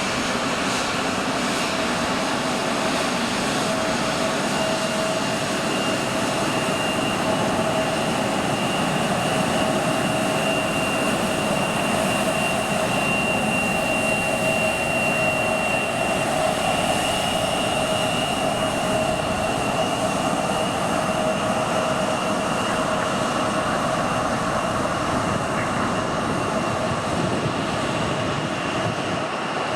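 Airplane engines running steadily: a broad rush with a steady high whine over it, holding an even level without building up or fading away.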